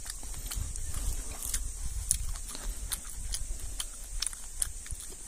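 Outdoor ambience with no voice: a low wind rumble on the microphone, a steady high-pitched hiss, and scattered small clicks and ticks.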